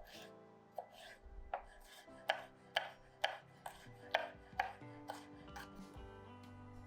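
A knife chopping vegetables on a cutting board: about a dozen sharp strokes, roughly two a second, loudest in the middle, with soft background music under them.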